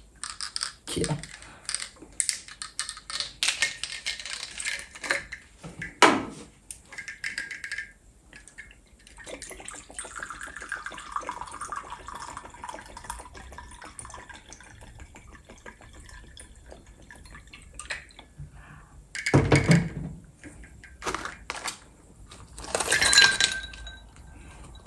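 Scotch whisky poured from a glass bottle into a crystal stemmed glass, a steady trickle for several seconds in the middle. A run of clicks and taps from handling the bottle comes before it, and two loud knocks follow near the end.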